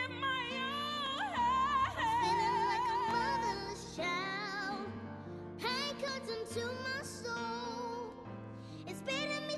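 A girl singing a gospel song, long notes with strong vibrato and melismatic runs, over sustained accompanying chords. There is a short lull about five seconds in before the next phrase begins.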